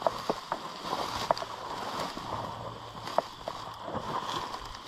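Dry grass and weed stalks swishing and crackling against someone wading through a tall meadow, with irregular small snaps from the stems.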